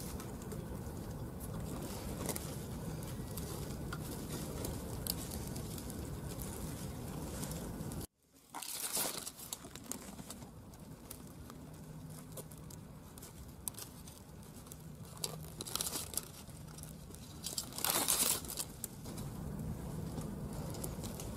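Dry esparto grass strands rustling and crackling as they are pulled and plaited into a braid, in several short bursts, the loudest about eighteen seconds in. For the first eight seconds a steady background noise runs, which cuts out abruptly.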